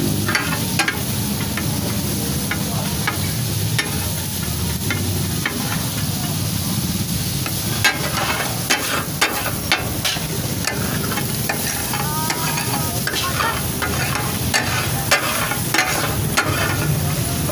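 Fish pieces in masala sizzling on a large flat metal griddle (tawa), with metal spatula blades striking and scraping the griddle in irregular clacks as the fish katakat is chopped and stirred. The clacks come thicker from about halfway through; this clatter of blades on the griddle is what gives katakat its name.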